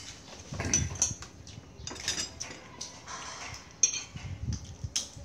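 Metal spoons clinking against ceramic plates and bowls as people eat, a handful of short separate clinks about a second apart.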